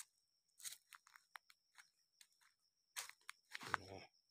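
Faint, irregular crunching of footsteps on dry oil palm fronds and leaf litter, with a denser crunch near the end.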